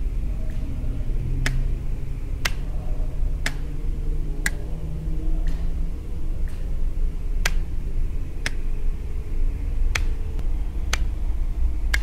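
Electrical relays clicking sharply about once a second, some clicks louder than others, as they switch the lamps of a light installation on and off. Under them runs a steady low rumble.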